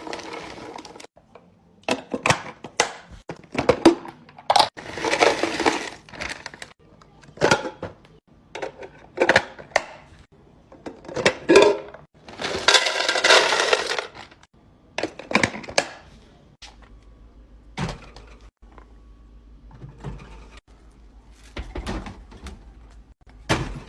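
Irregular clatters, knocks and rustles of food packaging and containers being handled and set down. Some are short taps and some are longer rustling or sliding sounds lasting a second or two, with quieter gaps between.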